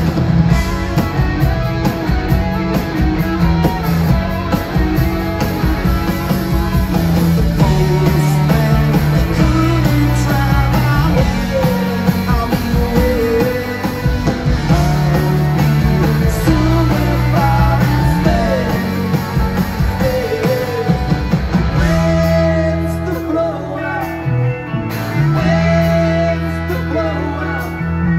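Live rock band playing: electric guitars, bass and drums, with a sung vocal line over them.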